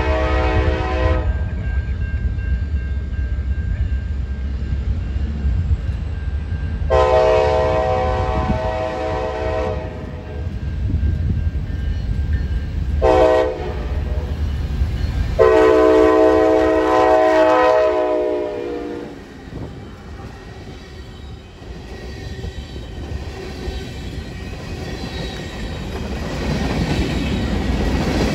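Diesel freight locomotive's multi-chime air horn sounding the grade-crossing signal: long, long, short, long, the first blast ending about a second in. Under the horn runs a steady low rumble from the train, which grows louder near the end as it draws closer.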